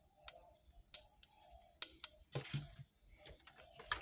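Scattered sharp clicks and light taps, with a brief rustle partway through, as small tools and parts are handled; no horn sounds.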